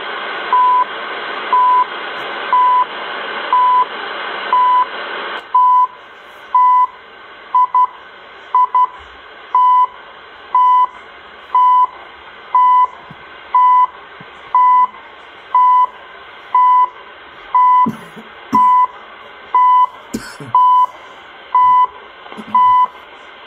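The CHU Canada shortwave time signal on 3330 kHz, received in AM on a small DSP SDR receiver and heard through its speaker. Short 1 kHz second ticks come once a second over band hiss. The hiss drops about five seconds in, a few shorter ticks come around the eight-second mark, and light handling clicks come near the end.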